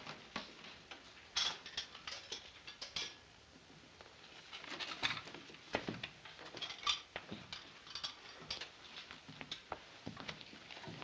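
Irregular light clinks and taps of dishes and cutlery.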